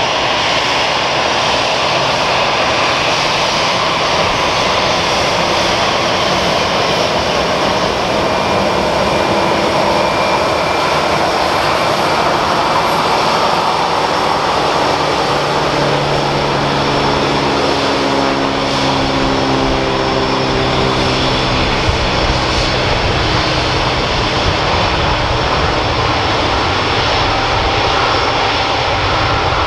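Airbus A318 jet engines running: a loud, steady jet roar, with a low hum that joins about halfway through for several seconds.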